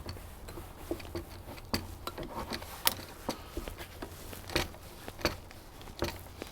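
A hose clamp being tightened with a hand tool: a run of small, irregular clicks and ticks, a few of them sharper.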